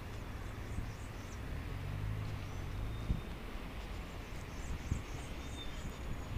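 City street background: a steady low traffic rumble, with a vehicle engine hum swelling about two seconds in, and faint bird chirps over it.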